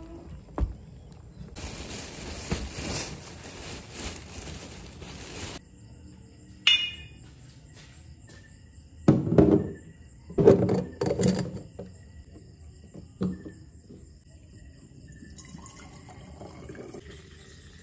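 Dark sauce poured from a plastic bottle through a funnel into a glass bottle: several loud glugs about halfway through, one more a little later, then a fainter trickle near the end. Before that there is a steady hiss for the first few seconds and a single sharp clink.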